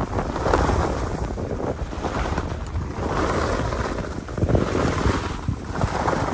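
Wind buffeting the microphone and skis scraping and hissing across the snow on a downhill run. The rush swells and eases every second or two, with the turns.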